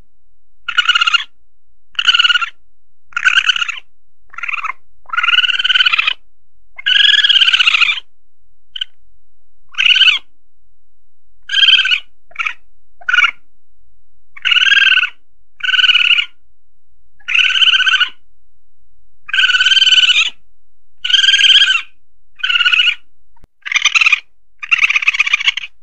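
Asian palm civet calls, played back as a hunting lure: about twenty short, high calls, each under a second, repeated at irregular intervals of about a second, a few of them longer with a pitch that arches up and back down.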